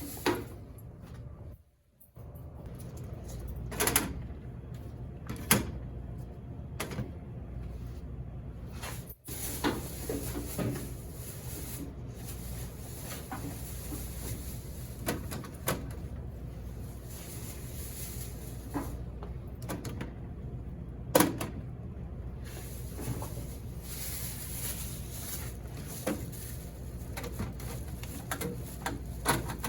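Scattered knocks and clicks of things being handled and set down, over a steady low hum.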